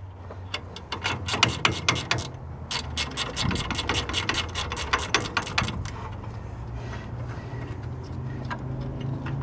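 Ratcheting gear wrench clicking quickly, about five clicks a second, as a 19 mm brake caliper bolt is backed out; the clicking stops about six seconds in.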